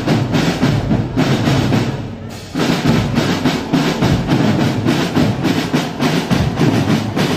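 Marching drumline of snare and bass drums playing a fast, dense cadence. It softens about a second in, then comes back in loud and all together at about two and a half seconds.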